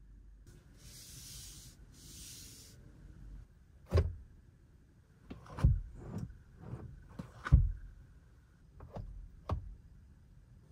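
A hand rubbing, then knocking and tapping on the interior trim panels of a 2024 Hyundai Sonata. A faint rubbing hiss comes in the first few seconds, then about nine irregular knocks, the loudest just past the middle.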